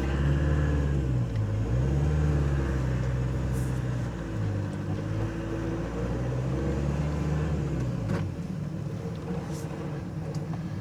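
Renault Trafic van's diesel engine running as the van is driven slowly, its note rising and falling several times. About eight seconds in there is a click, and the engine note gives way to a lower, steadier hum.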